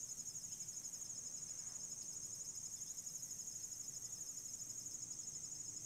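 Crickets chirping in a steady, high-pitched trill with a fast even pulse.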